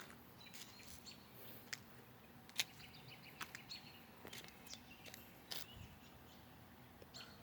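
Quiet outdoor ambience with faint, scattered bird chirps and small clicks; no siren yet.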